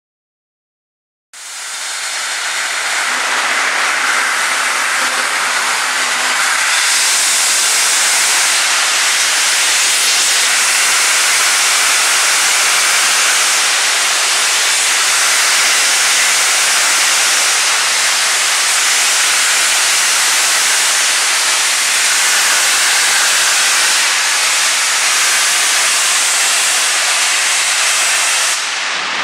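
Peppercorn A1 Pacific steam locomotive 60163 Tornado venting steam: a loud, steady hiss that starts suddenly about a second in and holds without any beat of exhaust.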